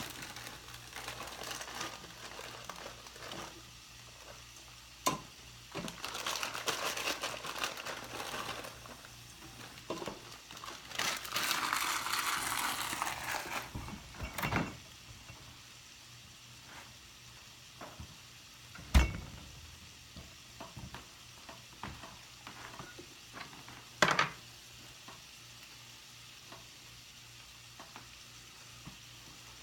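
Food sizzling in a frying pan while it is stirred, in hissing patches over the first half. Then it goes quieter, broken by a few sharp knocks; the one a little past the middle is the loudest.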